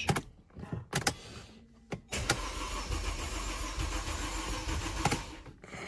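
Mercedes-Benz R-Class engine cranking on the starter for about three and a half seconds without catching, then stopping, with a few sharp clicks before it. This is a crank-no-start: the fuel pump is not being run, so the engine gets no fuel.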